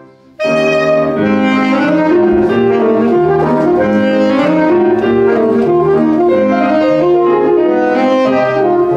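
Alto saxophone playing a jazz melody of sustained, flowing notes, starting about half a second in after a short pause.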